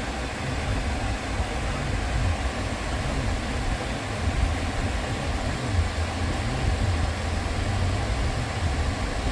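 Kia Niro hybrid running with its air conditioning on during a refrigerant recharge: a steady running noise over a low, unevenly pulsing rumble.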